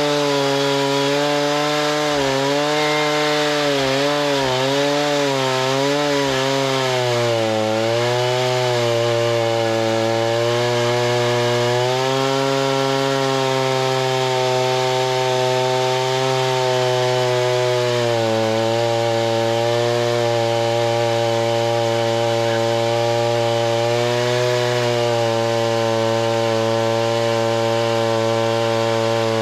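Gas-powered saw engine running hard while milling a log into lumber. Its pitch dips and recovers several times in the first several seconds as the cut loads it, then holds mostly steady.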